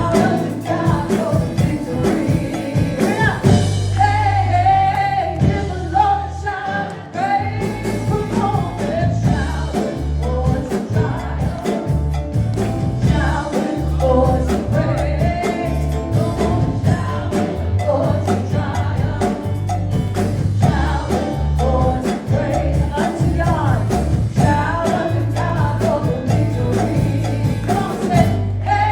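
Gospel song performed by a band: a lead singer over bass, drums and cowbell, with a steady beat.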